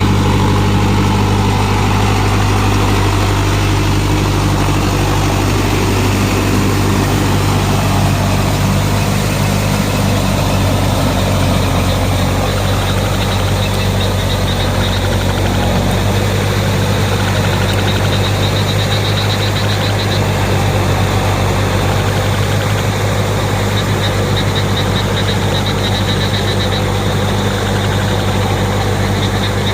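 Tractor engine running steadily at a constant speed, with a high pulsing chirp joining in from about halfway through.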